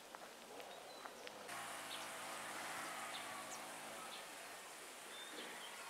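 A faint, steady low buzz begins about a second and a half in, with a few faint high chirps over it.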